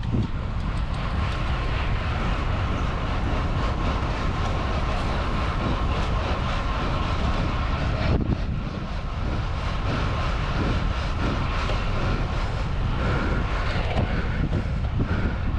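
Steady wind rush buffeting the microphone of a camera riding along on a moving road bike, mixed with faint riding noise.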